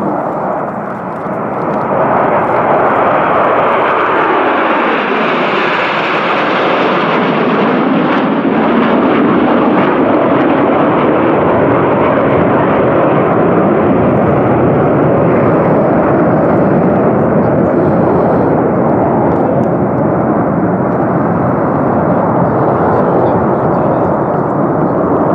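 Jet noise from a formation of Aermacchi MB-339 PAN jet trainers, each with a single Rolls-Royce Viper turbojet, passing overhead. The sound swells about two seconds in and stays loud, dropping in pitch during the first seconds as the jets pass.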